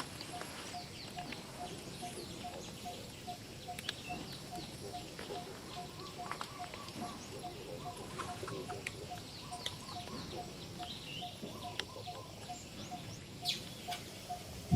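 Outdoor birdsong: one bird repeats a single note about three times a second, with short high chirps from other birds scattered over it.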